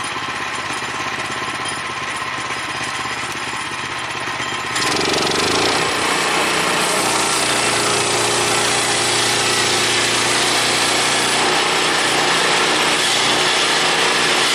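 Portable bandsaw sawmill running with its gas engine. About five seconds in the sound steps up and turns louder and hissier, holding steady from there on, as the blade cuts through the timber under load.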